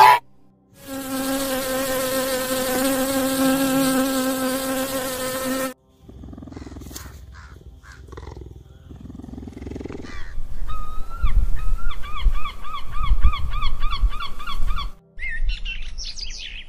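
A steady, even insect buzz for about five seconds. A little later comes a rapid run of high chirps, about four a second, typical of a cheetah's chirping, and this is the loudest part. A short high bird call follows near the end.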